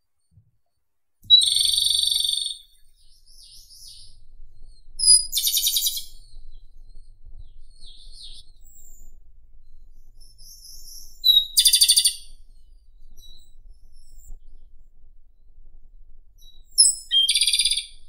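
Japanese robin singing: four song phrases several seconds apart, the first about a second in and the last near the end. Each is a short high opening note run straight into a fast rattling trill. Faint, soft twittering comes between the phrases.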